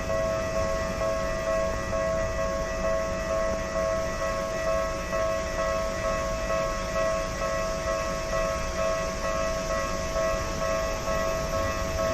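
Japanese railway level-crossing warning bell ringing on and on, a repeating electronic bell tone that signals an approaching train.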